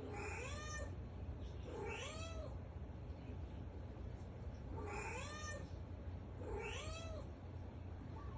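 A cat meowing four times, in two pairs, each meow rising and then falling in pitch, over a steady low hum.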